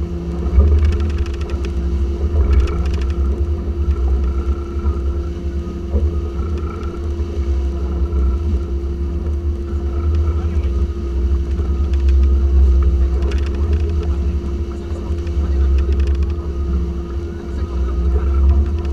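Twin Yamaha 350 hp V8 four-stroke outboards running under way at a steady speed. They make a constant drone with one clear steady tone, over a heavy low rumble.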